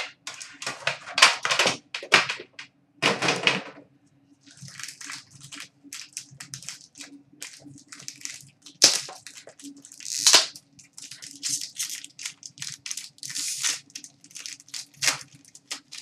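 Hands handling a metal card tin and the foil-wrapped pack of hockey cards inside it: an irregular run of sharp clicks, crinkles and rustles, with a faint steady hum underneath.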